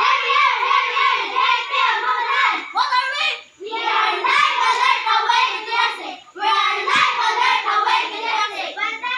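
A group of girls singing their patrol yell together as a chant-like song, breaking off briefly twice.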